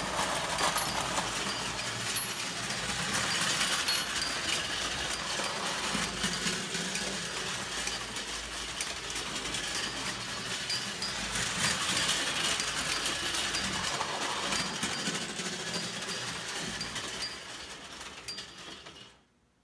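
Marx tin toy trains running on tinplate track: a steady metallic clatter of wheels on rails with fast, regular ticking. It fades away in the last couple of seconds.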